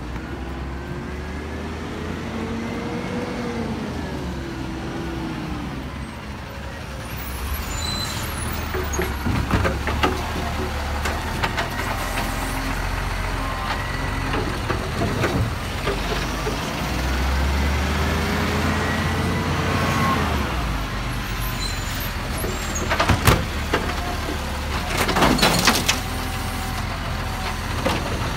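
Side-loader garbage truck's diesel engine running, revving up and back down twice as its hydraulic arm lifts and tips wheelie bins. Sharp knocks from the bins, and a loud hiss of air near the end.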